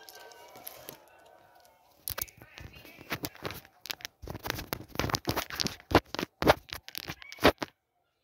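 Fingers rubbing and tapping on a phone right at its microphone: an irregular run of sharp crackles and scratches that starts about two seconds in and stops suddenly near the end.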